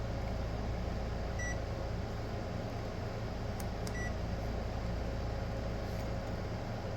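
Digital clamp meter giving two short high beeps, about a second and a half in and again about four seconds in, with a couple of sharp clicks just before the second beep, over a steady low hum.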